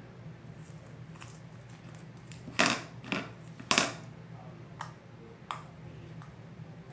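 Slime container being opened by hand: three loud, short crackling scrapes close together, then a couple of fainter clicks.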